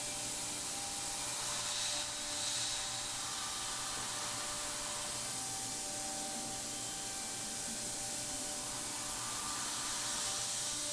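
Thermwood five-axis CNC router running its machining program: a steady hiss with a low, even hum underneath, and a brief brighter hiss about two seconds in.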